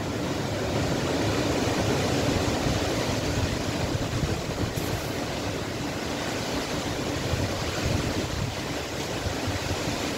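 Strong dry wind of a dust storm rushing through trees in uneven gusts, without rain.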